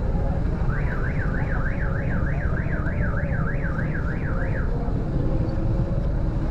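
An electronic warbling alarm, its pitch sweeping up and down about three to four times a second, sounds for about four seconds, starting about a second in, over the steady low rumble of a motor scooter engine and street traffic.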